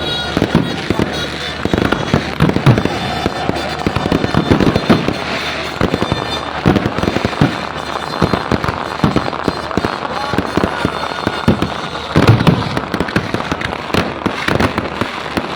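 Fireworks and firecrackers going off in a dense, unbroken barrage of sharp bangs and crackles, several each second.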